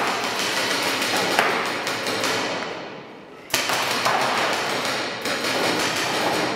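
Paintball marker firing rapid strings of shots that echo in a large warehouse hall: one long burst, then a second starting about halfway through.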